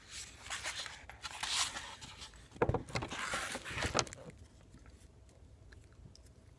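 Hands handling the packaging of a new pickup set: rustling and scraping with a few sharp knocks and clicks, dying down after about four seconds.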